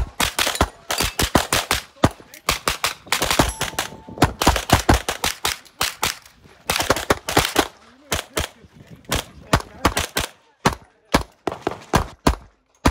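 Pistol shots fired in fast, irregular strings, many in quick succession, thinning to single shots spaced about half a second apart near the end.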